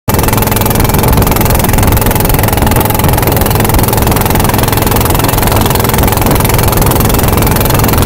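A boat's engine running steadily, loud and close as heard from aboard, with a constant low hum and a rushing noise over it.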